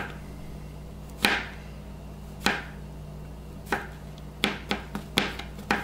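Knife slicing mushrooms, the blade knocking on a plastic cutting board. Single strokes come about a second apart, then a quicker run of strokes near the end.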